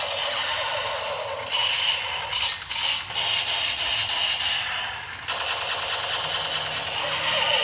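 Battery-powered toy gun's electronic firing sound effect, a buzzing machine-gun-like noise from its small speaker. It cuts off about five seconds in and starts again at once.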